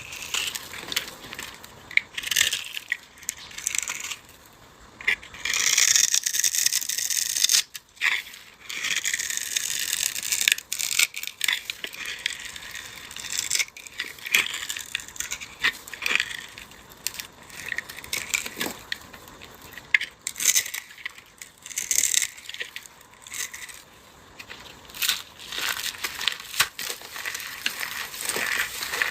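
Dry, crumbly material being crushed and crumbled: a dense, irregular run of crisp crunches and crackles, some louder bursts among quieter stretches.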